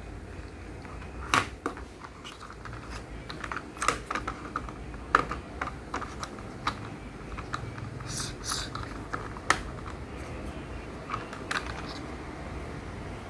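Plastic toy building pieces being handled and snapped together: irregular sharp clicks and taps, with two short scraping sounds about eight seconds in.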